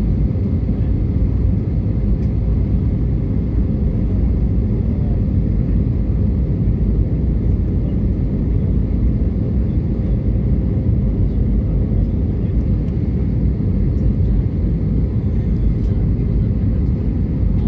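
Steady airliner cabin noise heard from inside the cabin: a continuous low rumble of engines and airflow with a faint steady hum, unchanging throughout.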